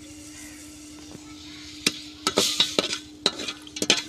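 Long metal ladle stirring sugar and water in a steel pot, scraping and clinking against the pot's sides in quick irregular strokes that start about two seconds in. A low steady hum runs underneath.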